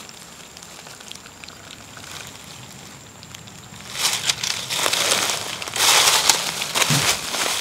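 A cat eating wet tuna from a bowl close to the microphone: wet chewing, smacking and lapping. The sound is faint clicks at first, then much louder and denser about halfway through.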